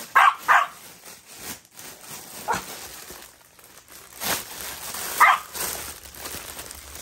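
A small dog barking: short, sharp barks, a quick pair at the start, then single barks about two and a half and five seconds in. Plastic packaging rustles briefly about four seconds in.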